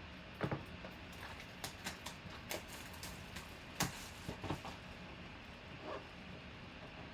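Trading-card packaging being handled and opened: a scattered run of short clicks, taps and crinkles, busiest over the first five seconds or so, then quieter.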